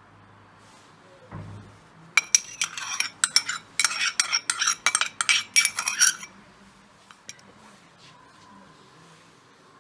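Metal spoon scraping and clinking against a small ceramic ramekin as thick BBQ sauce is scooped out into a bowl, in a quick run of scrapes lasting about four seconds. A soft bump comes just before.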